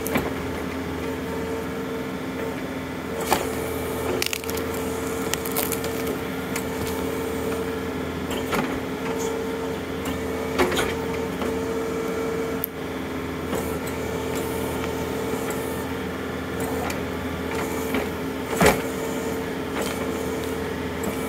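John Deere compact tractor's diesel engine running steadily while its backhoe works, with a handful of sharp cracks and knocks as wood and roots splinter and the bucket strikes logs. The loudest crack comes near the end.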